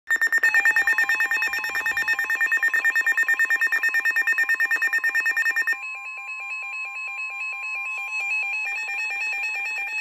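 Two weather alert radios going off together for a severe thunderstorm warning: a rapid pulsing electronic beep that cuts off about halfway through, then a steady high tone with a warbling beep over it, and another tone joining near the end.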